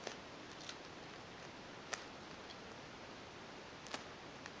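Faint handling sounds of a hand-decorated foam squishy being squeezed and turned in the hands: a few scattered soft clicks and taps, the sharpest about two seconds in and another near the end, over a quiet background hiss.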